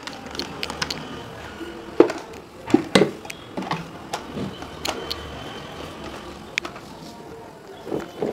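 Clicks and knocks from an Esquire 360° spin mop stick being assembled: stainless steel rod sections knocking together and plastic lock fittings snapping into place. The loudest knocks come about two and three seconds in, with scattered clicks after.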